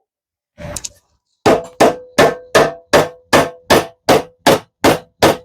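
Hammer striking a socket seized on a rusted nut of a steel mower deck, to knock it free. About eleven even blows come nearly three a second, starting about a second and a half in, each with a short metallic ring.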